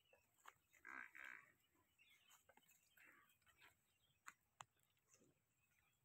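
Faint sounds from tethered water buffalo: one brief vocal sound about a second in, then two short clicks close together a little past the middle, over near silence.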